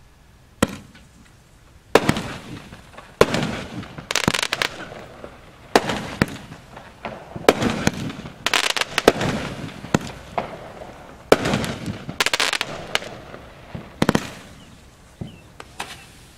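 500-gram consumer fireworks cake firing shot after shot: about a dozen sharp reports at an uneven pace, roughly one every second or so, each trailed by a sputter of smaller pops as the stars break. It starts about half a second in.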